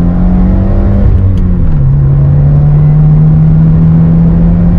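Subaru WRX's turbocharged flat-four engine droning under way, heard from inside the cabin. Its pitch drops about a second in and again just under two seconds in, then holds steady.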